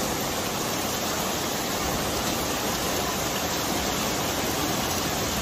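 Steady, even rush of fast-flowing floodwater pouring down a flooded street, with heavy rain falling.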